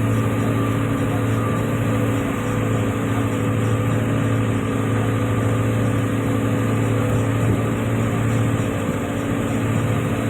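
Tugboat's diesel engine running steadily: a constant low hum that holds the same pitch throughout.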